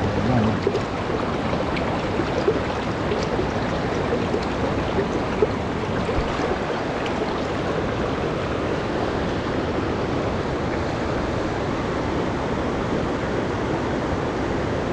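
River current rushing steadily, with a few faint short knocks in the first few seconds.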